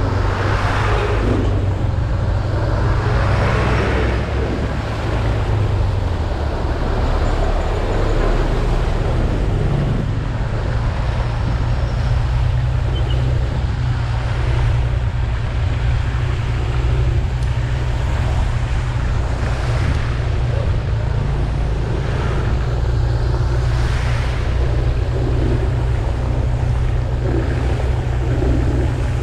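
Motor scooter riding on a wet road: a steady low engine hum under continuous wind and road noise.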